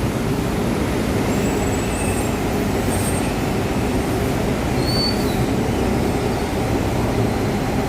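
Steady low rumble of Transjakarta buses and road traffic, with a brief faint high squeal about five seconds in.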